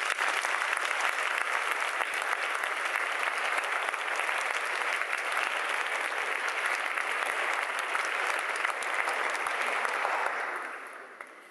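Audience applauding: the clapping starts suddenly, holds steady for about ten seconds, then dies away near the end.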